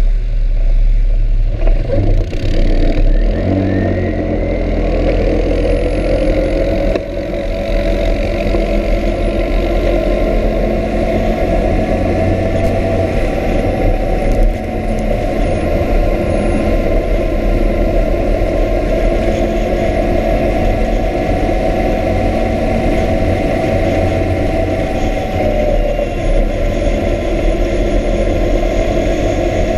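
ATV engine running on a gravel road. Its note climbs over the first few seconds as it speeds up, then holds steady at cruising speed, over a constant low rumble of wind and tyres on gravel.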